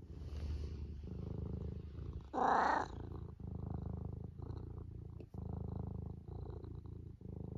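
Domestic cat purring close to the microphone in pulses about a second long with short breaks between them. About two and a half seconds in there is one brief, louder, higher-pitched call.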